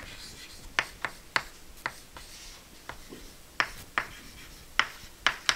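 Chalk writing on a blackboard: a string of sharp, irregular taps and short strokes as the chalk strikes and drags on the board.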